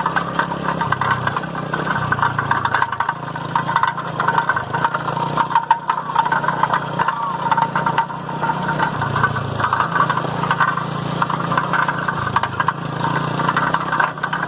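A small motor running steadily, its pitch stepping up and down several times.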